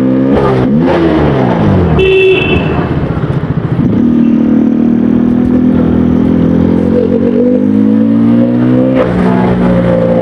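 KTM Duke 200 single-cylinder engine and exhaust under way. The note drops in the first couple of seconds and turns rough and choppy for a moment, then settles into a steady drone that shifts pitch again near the end. A brief horn toot sounds about two seconds in.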